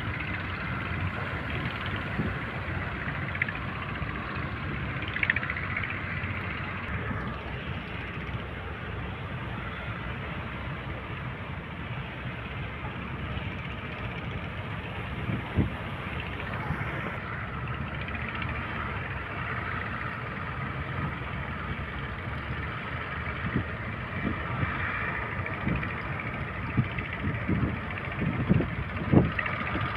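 Small boat's engine running steadily amid wind and sea noise, with a few short low thumps.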